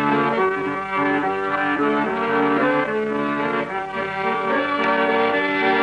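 Instrumental background music: a melodic tune of held notes over chords.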